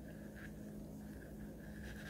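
Faint steady low hum with a single soft tick about half a second in.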